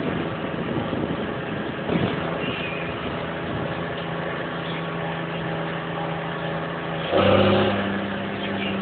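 Diesel engine of a farm machine running steadily, heard from inside the cab. About seven seconds in, it suddenly gets louder and its pitch steps up, then settles a little.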